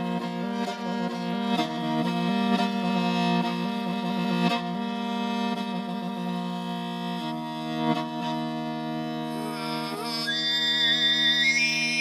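Morin khuur (Mongolian horsehead fiddle) bowed in long sustained notes over a low drone. About ten seconds in, a high whistling overtone melody with vibrato rises above the drone: Mongolian khöömei throat singing.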